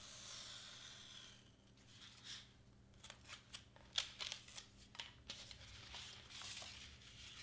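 Craft knife slicing through foam board: a soft scraping hiss, then a run of small sharp clicks and crackles, the sharpest about four seconds in.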